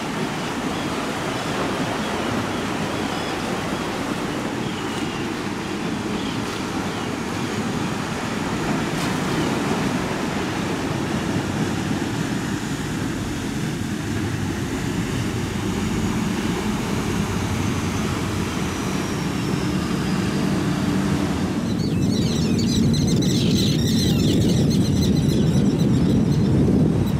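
Large sportfishing yacht's engines running under way through rough inlet water, a low steady drone mixed with breaking waves, wake spray and wind on the microphone, getting slightly louder toward the end.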